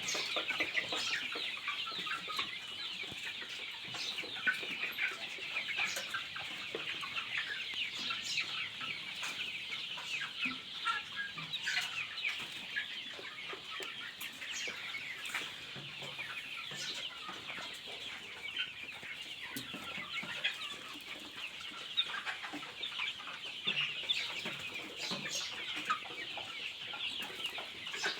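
A large flock of farmed chickens calling all at once: a dense, continuous chorus of high chirps and clucks, with occasional sharp clicks among them.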